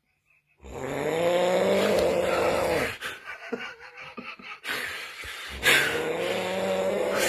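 A person snoring heavily: two long, drawn-out snores, each lasting two to three seconds, with softer breathing noise in the gap between.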